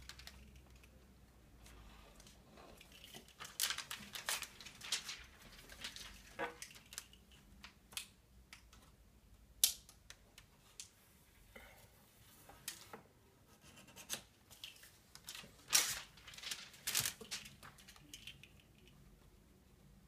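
Privacy window film being fitted to a window pane by hand: irregular short scrapes, crinkles and clicks as the film and a fitting tool are worked along the glass edge.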